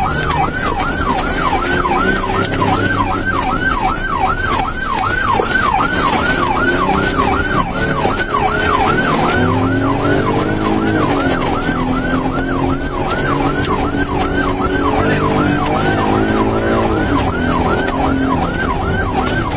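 Police car siren in fast yelp mode, sweeping up and down about three times a second without a break. Underneath, a lower engine note rises and falls as the cruiser speeds up and slows.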